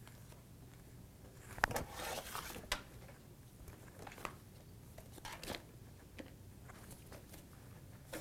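Thin plastic being handled: a sharp snap about a second and a half in, then about a second of crinkling, with a few softer clicks and rustles later.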